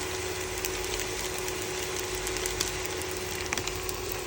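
Fried rice sizzling in a pan while a spatula stirs and scrapes it, with scattered clicks of the spatula against the pan over a steady hum.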